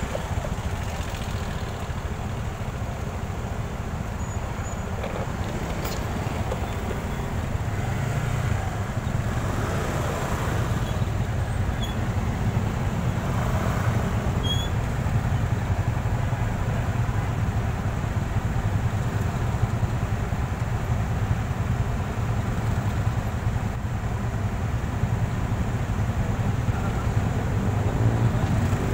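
A motorcycle riding in slow, congested city traffic: its engine runs with a steady low hum over the mixed noise of surrounding vehicles, growing a little louder after several seconds.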